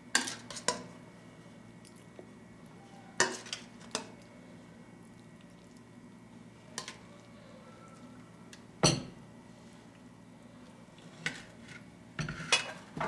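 Metal serving spoon clinking and scraping against a stainless steel bowl and a ceramic plate as food is spooned out, in scattered separate knocks with quiet gaps between. The loudest knock comes about nine seconds in, and several come close together near the end.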